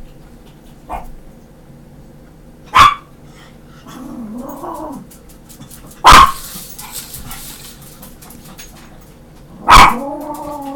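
Chihuahua barking: three loud, sharp barks a few seconds apart, with short whining sounds between the first two and right after the last.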